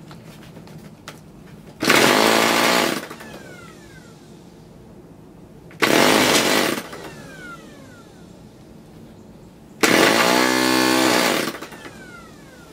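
Handheld electric starter spinning a vintage Frog 500 spark-ignition model engine in three short bursts, each about a second long, each trailing off in a falling whine as it winds down. The engine is being cranked and has not yet started.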